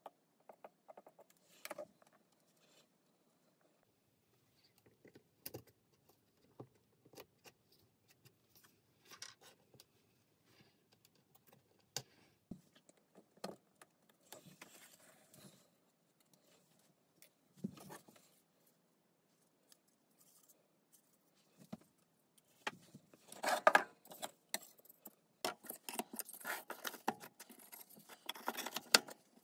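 Thin laser-cut plywood parts clicking and tapping against each other and the tabletop as they are handled and fitted, a few scattered knocks at a time, then a busier clatter of wooden pieces being shuffled and slotted together for the last several seconds.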